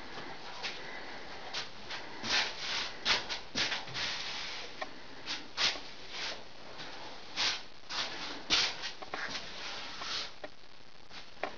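Irregular short rustling and rubbing noises, a dozen or so, over a steady hiss.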